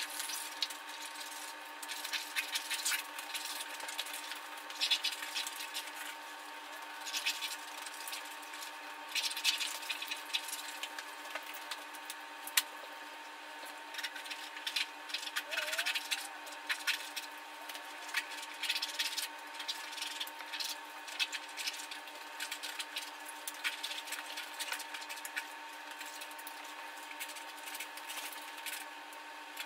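Irregular rustling, brushing and scraping as paint brushes and hands work over a canvas, over a steady hum. One sharp click about twelve seconds in.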